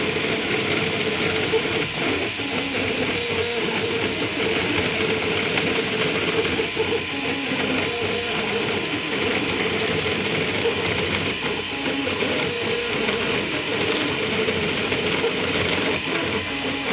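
Small desktop 3D printer running mid-print: a steady hum and hiss from its motors and fan, with tones that shift as the print head moves.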